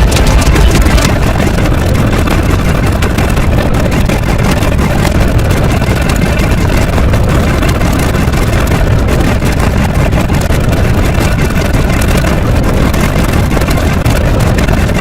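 A loud, steady, rumbling roar, heaviest low down, like a large engine running without change.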